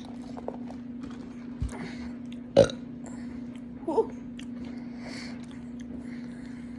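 A woman's single loud, short burp about two and a half seconds in.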